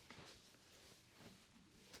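Near silence: faint soft rustling in a small room.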